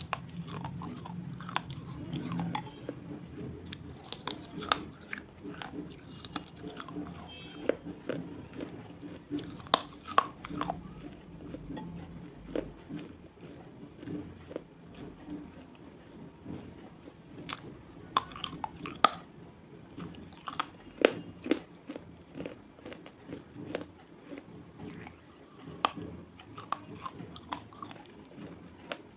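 A person biting and chewing pieces of hard clay close to the microphone: sharp, irregular crunches come every second or so over steady chewing.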